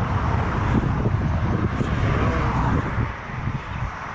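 A car passing on the road, a rushing noise that eases off about three seconds in, with wind buffeting the microphone.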